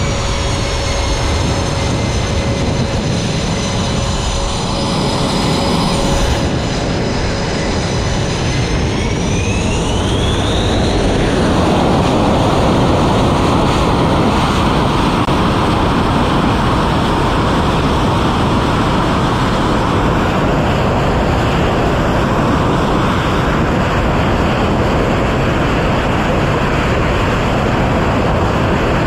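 F/A-18's twin jet engines whining on the carrier catapult, then spooling up to full power with a rising whine about nine seconds in and running loud and steady at launch power.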